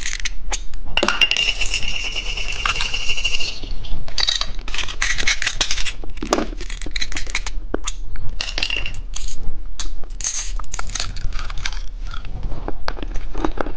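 Small hard plastic pieces clicking, scraping and rattling as they are handled, with a brief steady high squeak about a second in.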